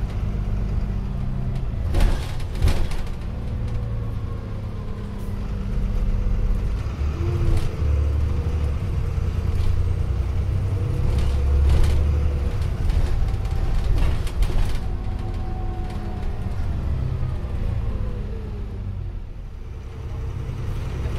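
Dennis Trident double-decker bus heard from inside the passenger cabin: its diesel engine and drivetrain run under a steady low rumble, the engine note rising and falling as the bus speeds up and slows. The body gives a few sharp knocks and rattles over the road.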